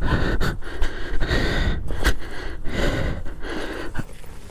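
A person breathing hard close to the microphone, a gasping breath every half second to second, over a steady low rumble.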